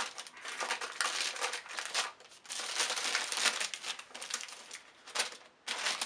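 Crinkling and rustling of plastic and paper packaging wrap being handled inside a cardboard box, in quick irregular bursts, with a brief lull near the end.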